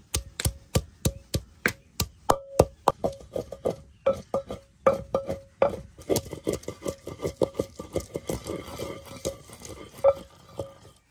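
Wooden pestle pounding garlic cloves in a terracotta mortar: sharp knocks about two to three a second, each with a short ring from the clay bowl, turning into quicker, lighter crushing strokes about halfway through as the garlic breaks down to a paste.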